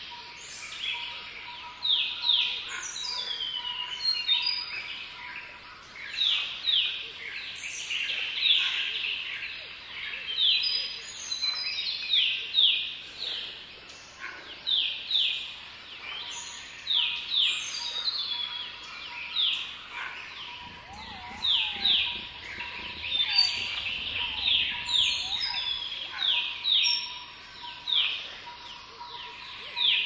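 Several songbirds chirping and singing together, with sharp, quickly falling chirps repeated about once a second and other whistled calls overlapping them. A faint steady high tone runs underneath.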